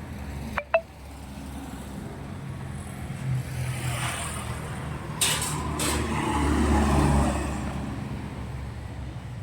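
Truck engine rumbling, building to its loudest about seven seconds in and then easing off, as a heavy vehicle moves off or passes. Two sharp clicks come just under a second in, and short hissing bursts a little after five seconds.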